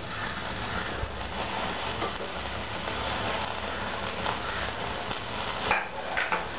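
Gas stove burner flame burning steadily with a low rumble, roasting a marinated chicken leg set on a wire stand directly over it. Two short, sharper sounds near the end.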